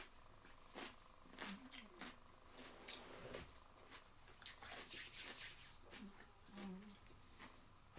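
Mostly quiet, with scattered small clicks and soft low mouth sounds. In the middle, hands are rubbed together over a plate, a run of soft brushing hisses lasting about a second.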